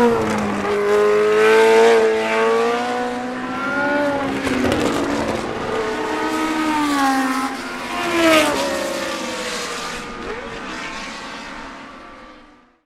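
1970s Formula 1 racing car engines running at high revs as the cars go past, the pitch rising and falling with throttle and gear changes and dropping sharply as one car passes about eight seconds in. The sound fades out near the end.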